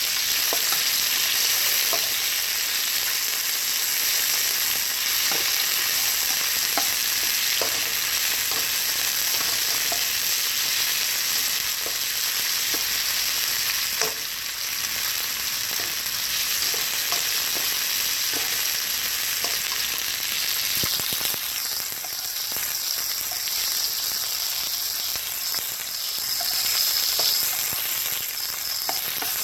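Sliced marinated chicken breast sizzling in hot oil in a nonstick wok over high heat, a steady frying hiss, with scattered taps and scrapes of a spatula stirring the pieces and one sharper tap about halfway through. This is the first sear of the chicken, cooking it about halfway before the vegetables go in.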